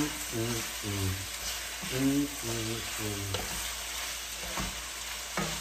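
Chicken wings sizzling as they fry in hot oil in a stainless steel skillet, stirred with a wooden spatula that clicks against the pan a few times. A man's voice sings a tune in steady notes over the sizzle for about the first three seconds.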